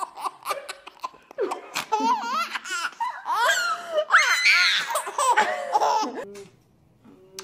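A baby laughing hard in repeated high, quivering peals. The laughter dies away about six seconds in.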